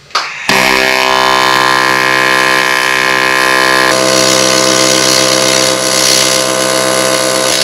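AC TIG welding arc from a Miller Dynasty 200 tack-welding aluminum tubing: a loud, steady electric buzz that starts about half a second in and holds, its tone shifting slightly about halfway through.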